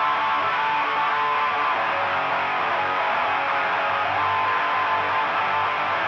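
Electric guitar strumming chords at a steady level as the opening of a punk rock song, with no drum hits.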